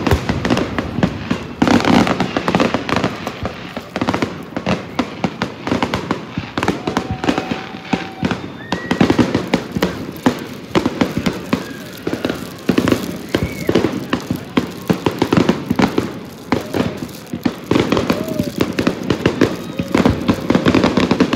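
Aerial fireworks display: a dense, continuous barrage of shell bursts and crackling, many sharp bangs a second.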